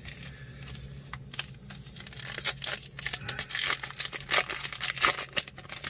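Trading card pack wrapper being torn open and crinkled by hand, a run of irregular crackly ripping and crumpling that starts about a second and a half in.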